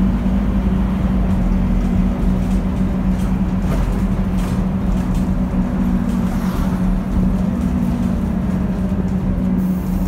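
Scania East Lancs Olympus double-decker bus heard from inside the lower deck: the engine runs with a low rumble and a steady hum, plus a few faint knocks from the body.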